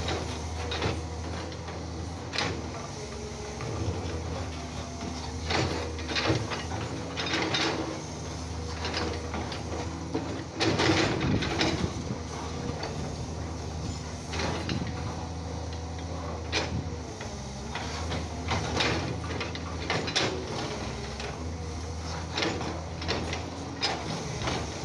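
Komatsu hydraulic crawler excavator running with a steady diesel drone, over which come repeated knocks, clanks and scrapes as its bucket works against limestone rock. There is a cluster of louder knocks about halfway through.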